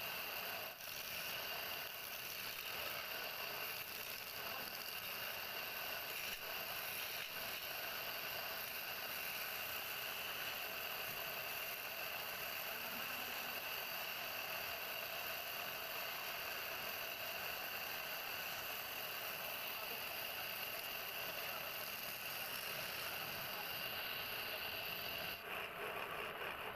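Wood lathe running with a hand chisel cutting the spinning wooden leg: a steady scraping hiss of the cut over the machine's running noise.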